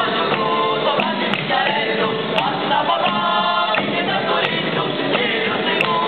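Folk ensemble performing a traditional Christmas song: several voices singing together over accordion, acoustic guitar and frame drum.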